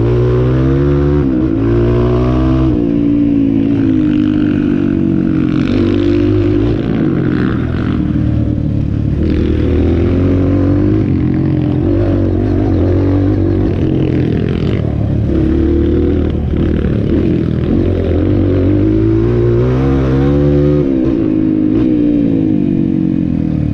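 Off-road motorcycle engine running under way, its pitch climbing as it accelerates and dropping back at each gear change or throttle lift, with a few knocks and rattles along the way.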